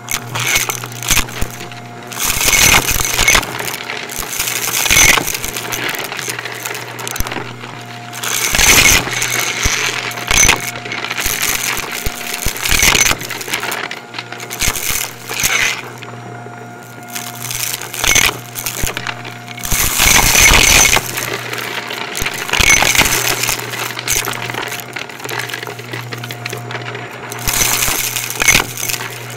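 Shark Navigator bagless upright vacuum running steadily with a low motor hum while it sucks up dry debris, which crunches and rattles through it in repeated loud bursts.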